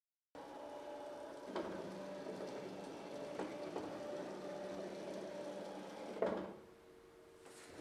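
Small mobile robot's electric motors running steadily as it drives across the arena floor, a hum with a few light clicks. The hum drops away sharply about six and a half seconds in.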